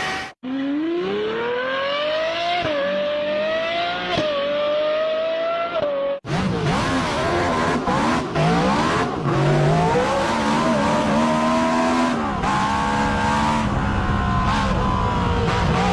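Two clips of multi-cylinder V-engine cars. In the first, the engine accelerates hard through the gears, its pitch climbing and dropping back at each of three upshifts. After a cut about six seconds in, a second engine revs up and down, rich in overtones.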